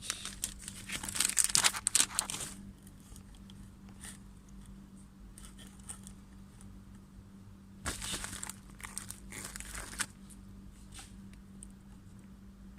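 Plastic packaging crinkling and tearing as a parcel of parts is unwrapped by hand. It comes in two spells, loudly for the first two and a half seconds and again about eight seconds in, with lighter rustles between.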